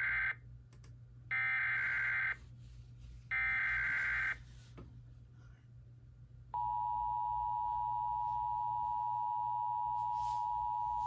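Emergency Alert System SAME header for a National Weather Service severe thunderstorm warning: three one-second bursts of digital data tones about a second apart, the first already under way and ending just after the start. After a pause of about two seconds the steady two-tone EAS attention signal begins and holds through the end.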